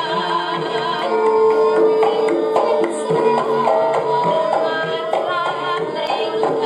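Javanese gamelan music accompanying a Gambyong dance: ringing, sustained metallophone notes stepping from pitch to pitch over frequent hand-drum (kendang) strokes.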